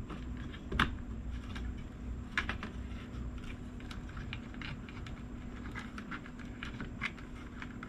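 Irregular light clicks and taps of hands and a small tool working on a mini PC's open chassis, tucking wiring in beside the blower fan. A sharper click comes about a second in.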